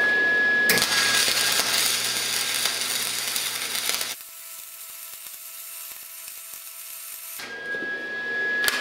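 Flux-core welding arc from a Lincoln MIG Pak 140 wire-feed welder, crackling and spitting as a bead is run. The welder is on the factory electrode-positive polarity, wrong for gasless flux-core wire, so the arc spatters heavily. The loud crackle drops off sharply about four seconds in and picks up again near the end.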